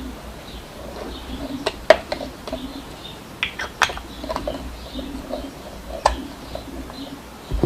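Scattered sharp clicks and knocks of a riflescope and its packaging being handled, about six in all, the loudest about two seconds in.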